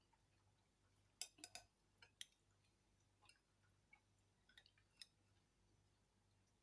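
Faint eating noises: scattered short clicks and crunches, with a cluster of sharper ones about a second in and smaller ticks after.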